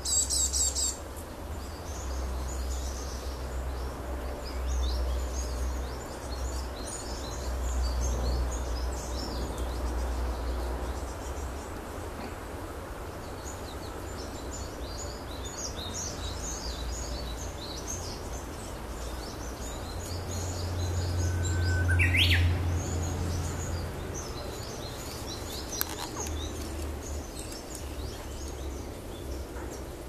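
Small songbirds chirping and twittering with many short, high calls, dense at the start and scattered through the rest, and one louder rising call about two-thirds of the way through. A low rumble runs underneath.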